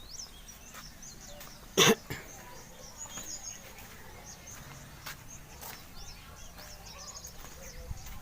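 Small birds chirping and twittering throughout. One short, loud, sharp burst cuts in about two seconds in.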